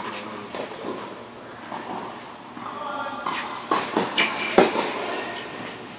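Tennis rally on an indoor hard court: sharp pops of a tennis ball struck by rackets and bouncing on the court, ringing in the hall. The loudest strike comes about four and a half seconds in.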